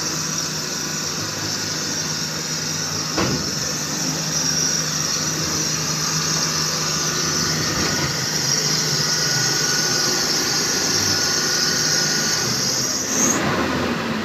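Diesel engines of a UD Trucks hook-lift truck and a backhoe loader running steadily as the truck crawls forward through deep mud. A high steady hiss lies over the engines and rises, then cuts off, near the end. There is a single knock about three seconds in.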